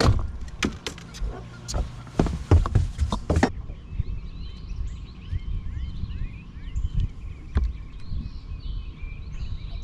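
Knocks and clatter of gear being handled on a bass boat's front deck for the first few seconds. The sound then changes abruptly to birds chirping over a faint steady hum and a low rumble.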